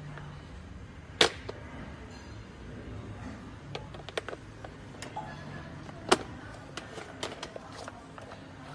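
Plastic clicks and clacks from handling a toy activity cube's phone dial and handset: two sharp clacks, about a second in and about six seconds in, with lighter scattered clicks between.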